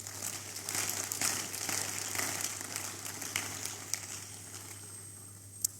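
Congregation applauding: dense clapping that swells during the first second or two, then slowly dies away.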